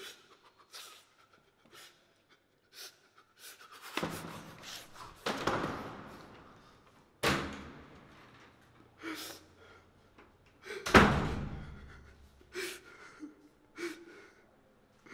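Four heavy door slams, each with an echoing tail; the loudest comes about eleven seconds in. Short, heavy breaths of a distressed man fall between them.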